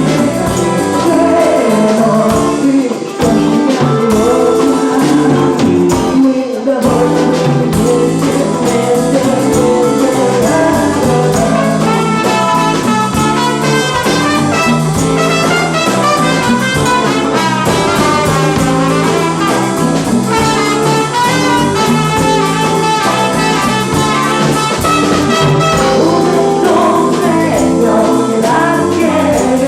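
Live band playing a song with singing and brass instruments.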